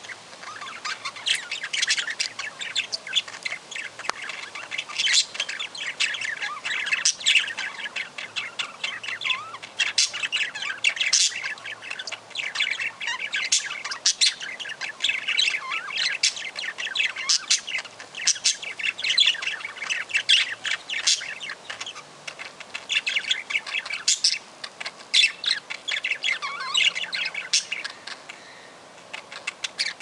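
Budgerigars chattering: a dense, busy run of short sharp chirps and squawks, with a couple of brief lulls near the end.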